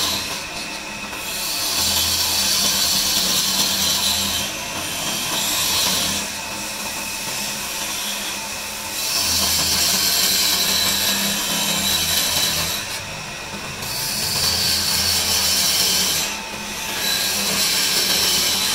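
Wood lathe running with a steady motor hum while a hand-held turning chisel cuts into the spinning wooden blank, a high scraping noise in spells of a few seconds with short breaks between them.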